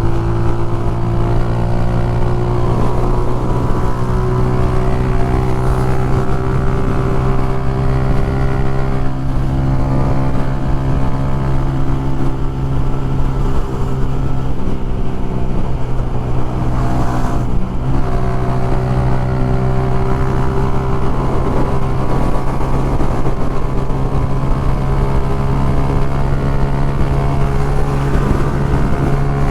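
Motorcycle engine running at a steady cruise, with wind noise on the microphone. About halfway through, the engine note dips briefly, then holds steady again.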